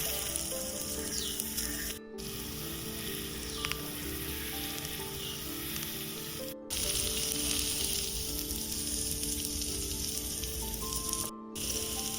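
Food frying in hot oil in a pan on a wood-fired earthen stove, a steady sizzle, over soft background music with held notes. The sound drops out briefly three times.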